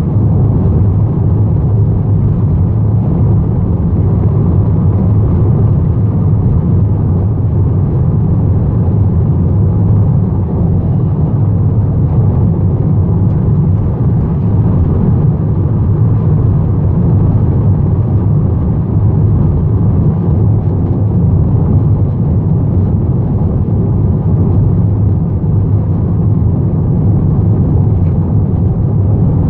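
Steady road and engine noise heard inside a moving Volkswagen's cabin while cruising: a low rumble that holds even throughout, with no sharp knocks or changes.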